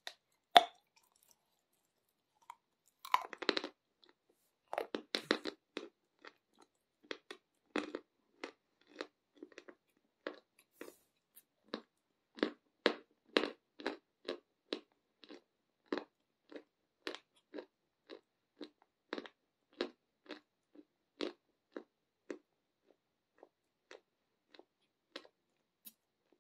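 Close-miked chewing of a dry, crumbly white chalky food that crunches well. One loud bite comes about half a second in, then a steady run of crisp crunches about one to two a second, growing fainter near the end.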